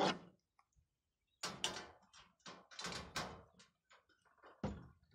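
Thin sheet-metal panels of a chicken nesting box being handled and fitted together: a string of metal clanks, scrapes and rattles, with a sharp knock near the end.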